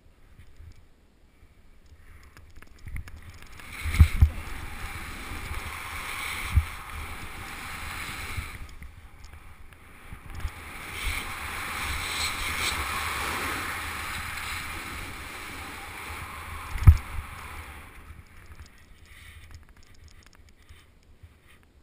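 Skis running and turning down a snow slope: a steady hiss of snow that swells and eases for about fifteen seconds, with a few dull thumps, the loudest near the end, before it dies away as the skier stops.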